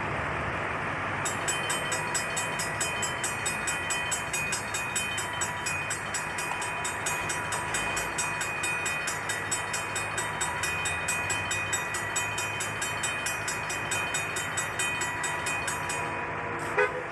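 Railroad grade-crossing warning bell ringing with rapid, evenly spaced strikes over the low rumble of an approaching train. The bell starts about a second in and stops shortly before the end, followed by a single sharp click.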